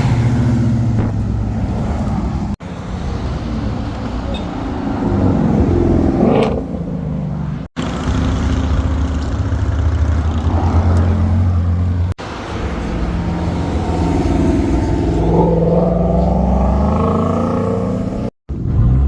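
Car engines running and revving, with a car accelerating hard about six seconds in and engines revving up again near the end. The sound cuts off abruptly several times as short clips follow one another.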